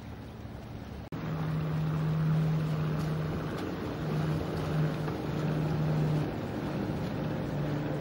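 Outdoor wind and surf noise, broken by a short dropout about a second in. After it comes a steady low engine hum that stops and starts again several times.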